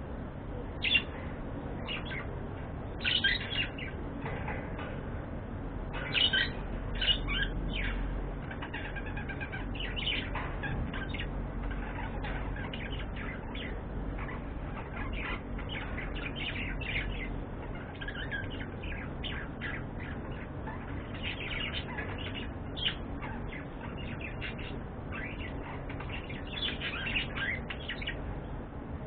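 Budgerigars chirping: a steady stream of short, overlapping high chirps, with a few louder ones in the first seven seconds or so.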